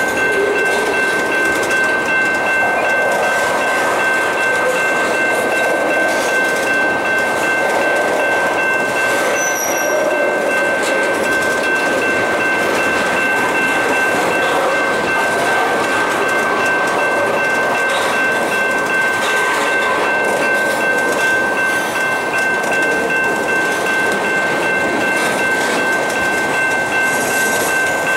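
Freight train of tank cars rolling past at steady speed: a continuous rumble and rattle of wheels on rail, with a steady high-pitched whine running over it.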